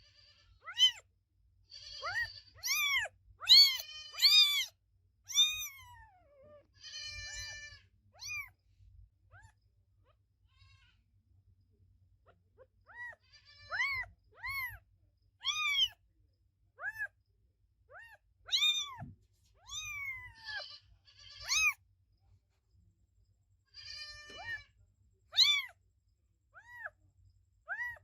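Kitten meowing over and over in short, high-pitched meows that rise and fall in pitch. About a third of the way in there is a pause of a few seconds, and later one longer meow slides down in pitch.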